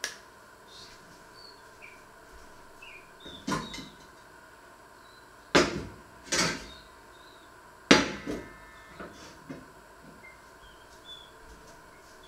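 Metal cookware clanking as pots and lids are shifted on the stove and a steel frying pan is pulled out: a series of sharp knocks, the loudest about three and a half, five and a half, six and a half and eight seconds in.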